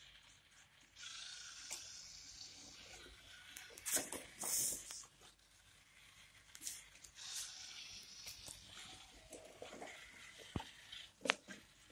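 Small motor-driven walking robot with four-bar-linkage wooden legs stepping over clay roof tiles, the legs scraping and knocking on the tiles. There are a few sharp clicks, the loudest near the end.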